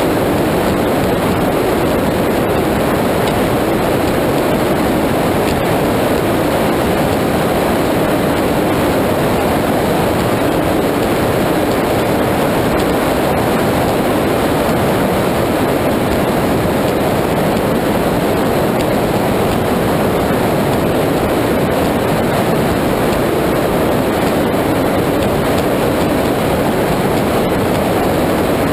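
Powerboat running at speed: an even, unbroken roar of its engines mixed with water rushing past the hull.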